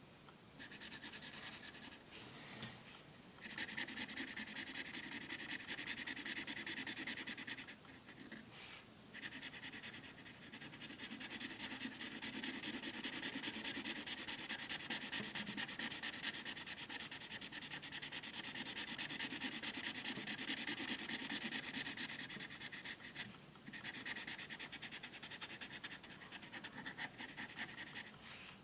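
Felt-tip marker scribbling rapidly back and forth on paper, filling in a solid black area. It runs in long stretches with a few short pauses between them.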